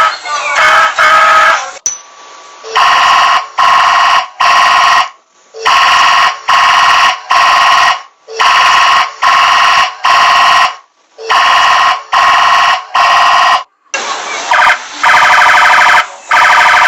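Electronic alarm-style sound effect from a funfair car ride's speaker: a loud, buzzy tone beeping in repeated groups of three short blasts, with a wavering tone in the last few seconds.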